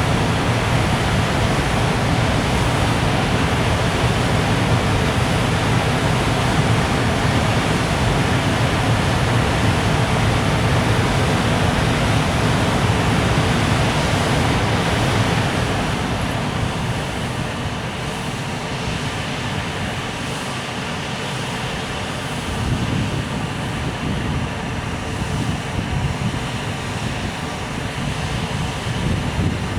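Freight train's container wagons rolling along the rails: a steady rumble that eases off about halfway through, with a few brief wheel knocks in the later part.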